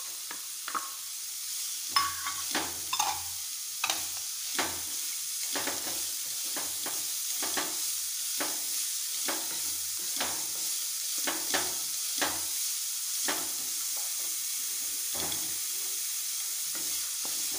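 Diced carrot, onion and garlic sizzling in ghee in a frying pan, stirred with a wooden spatula. The spatula scrapes or taps against the pan roughly once a second over a steady frying hiss.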